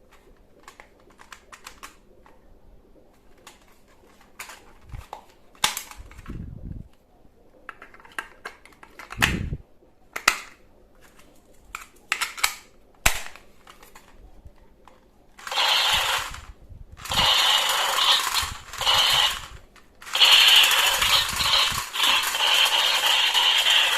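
Plastic toy guns handled and fired: a scattering of short clicks and snaps, then several long rattling bursts lasting a second to a few seconds each.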